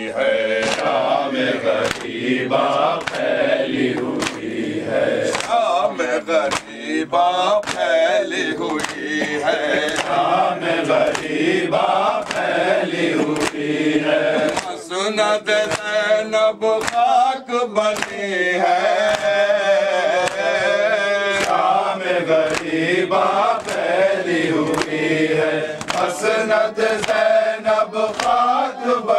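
Group of voices chanting an Urdu noha (Shia Muharram lament), lead reciter and congregation together, over a steady beat of matam: rhythmic chest-beating keeping time with the chant.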